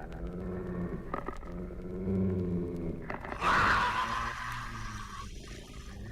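Spooky sound effects played from a vinyl record: low, drawn-out wavering tones, with a sudden loud hissing burst about three and a half seconds in that fades away.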